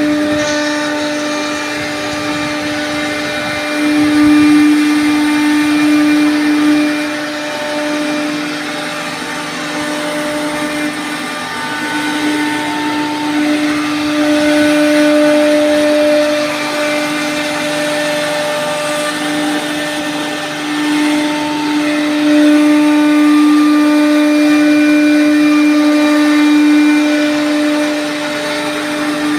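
CNC wood router's spindle whining at a steady pitch as its bit routes grooves into a solid-wood door panel. The cutting noise grows louder and softer several times as the bit moves along the cut.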